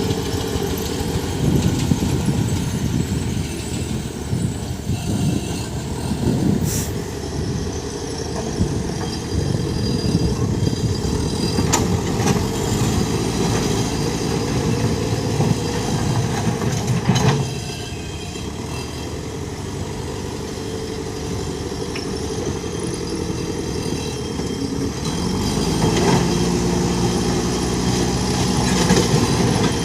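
JCB backhoe loader's diesel engine running under working load, its pitch rising and falling as the machine works, with a few sharp clanks along the way.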